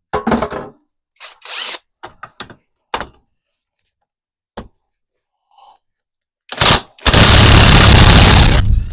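Several short clanks of tools on metal, then a power tool running hard for a little under two seconds near the end.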